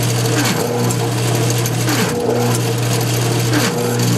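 GM alternator spun on a bench tester and full-fielded from a battery, running with a loud growling sound over a steady hum, surging about every second and a half. The growl is the sign of a bad bridge rectifier; a grounded or shorted stator can also growl.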